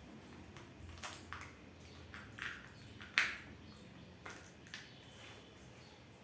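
Kinder Joy candy packaging being handled: an irregular series of short crinkles and clicks, the loudest about three seconds in.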